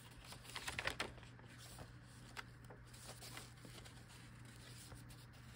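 Paper pages of a handmade junk journal being turned by hand: soft rustling and light flicks, loudest about a second in, then a few faint ticks, over a faint steady hum.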